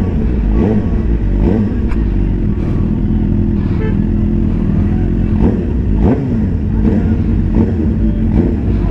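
Suzuki GSX-R 750's inline-four engine running at low, fairly steady revs as the motorcycle rolls slowly in traffic, with a heavy low rumble.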